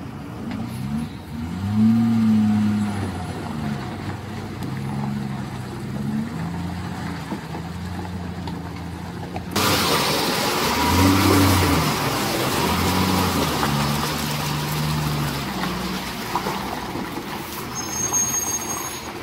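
Diesel engines of heavy tipper trucks labouring in low gear through deep mud, the engine note rising and falling as they rev. About halfway through, a closer truck comes in louder, with a strong hiss over the engine.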